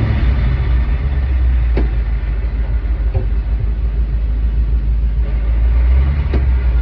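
An engine running steadily with a low rumble, with a sharp click about two seconds in and another near the end.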